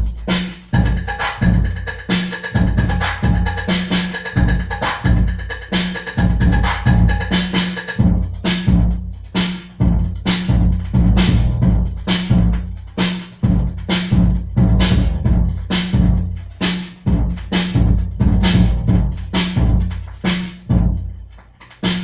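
Funk melody dance track playing in a DJ mix: a fast drum-machine beat with heavy bass hits and synth, a high held synth note over the first part, and the beat thinning briefly near the end.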